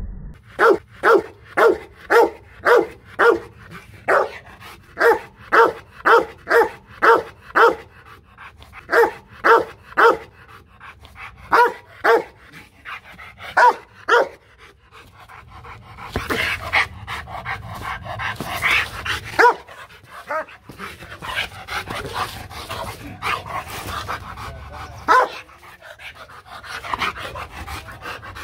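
A Rottweiler barking in a fast, regular series of about two loud barks a second, warning barks of a guard dog straining on its leash. About halfway through, the series breaks into panting with a few scattered barks.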